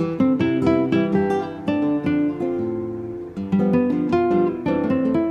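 Background music: acoustic guitar playing a plucked melody, several notes a second.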